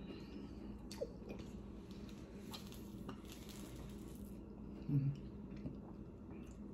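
Faint sounds of fingers tearing apart a juicy orange wedge over a bowl to pick out seeds, with a few small clicks and a soft rustle. A short low sound comes about five seconds in.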